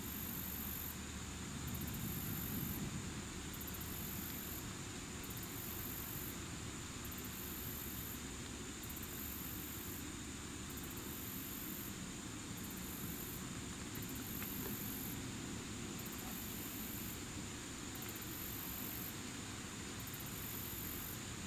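Outdoor ambience: a steady low rumble with a very high-pitched insect trill that pulses on and off about once a second.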